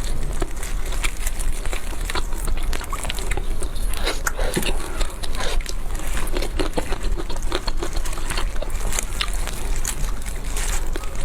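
Close-up eating sounds: someone chewing and biting into chicken, with many small wet mouth clicks and smacks, over a steady low hum.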